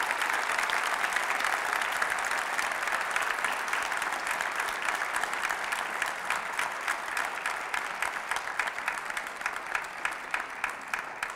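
Audience applauding: dense, steady clapping that thins toward the end into more separate claps.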